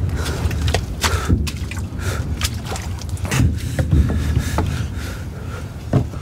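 Scuffling and scraping of movement through wooden debris, with many short knocks, over a steady low rumble.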